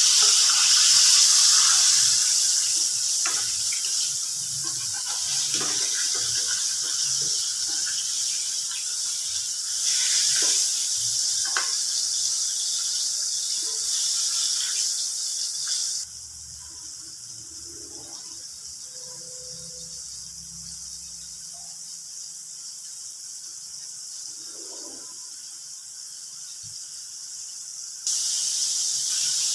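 Flour-coated chicken pieces frying in hot oil in a pan: a steady sizzle with light clicks of metal tongs against the pan as the pieces are turned. About halfway through the sizzle drops much quieter, then comes back at full level near the end.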